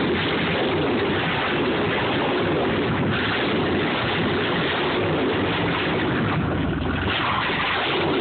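A jet boat's V8 engine running steadily, heard close to the open engine bay.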